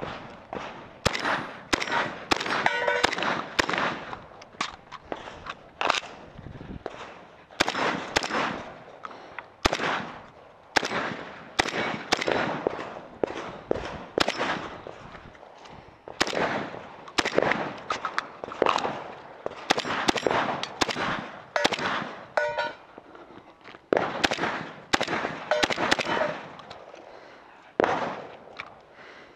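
Semi-automatic magazine-fed shotgun firing repeatedly during a course of fire, dozens of shots in irregular strings with some quick doubles. A couple of shots are followed by the ringing of a struck steel target.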